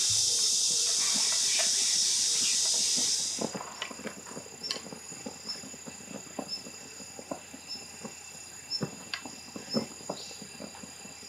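A loud steady high hiss that cuts off abruptly about three seconds in. After it come soft scattered clicks and taps of a metal ladle against a glass bowl and a frying pan as beaten egg is ladled into the pan, with faint high chirps about once a second.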